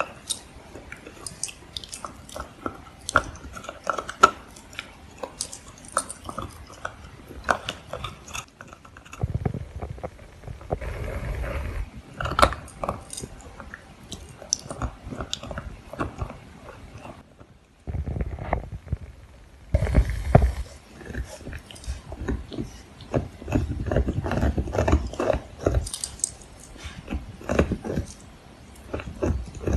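Blue heeler puppy gnawing a hard deer antler: irregular sharp clicks and scrapes of teeth on antler, mixed with stretches of low, muffled rubbing and thumping.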